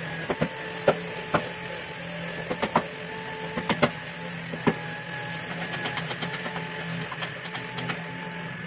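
A small motor hums steadily while sharp knocks on wood come at irregular intervals, about seven of them, mostly in the first five seconds, as the wooden bench is worked on.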